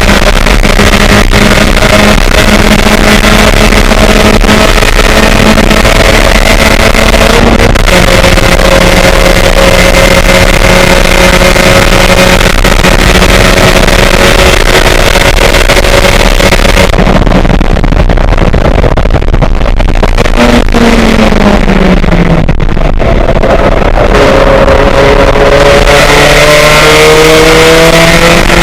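Race car engine heard onboard, running loud and hard at high revs. About twenty seconds in its pitch falls away, then near the end it climbs steadily again as the car accelerates.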